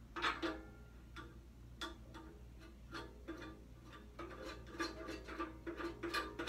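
Small star knobs being hand-twisted onto threaded studs on a photo booth's U-shaped yoke: irregular light clicks and short rubbing sounds, coming faster in the last couple of seconds.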